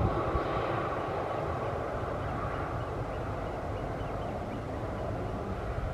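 Twin jet engines of a Finnair Embraer 190 rolling out after landing: the engine whine fades away at the start and the sound settles to a steady, low rumble as the aircraft slows on the runway.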